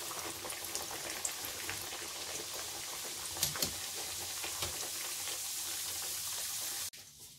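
Sambusak pastries deep-frying in hot oil in a wok: steady sizzling and crackling of the bubbling oil, with a few louder pops, stopping abruptly about seven seconds in.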